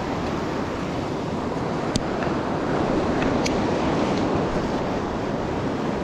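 Steady rushing of stream water, an even wash of noise, with a single sharp click about two seconds in.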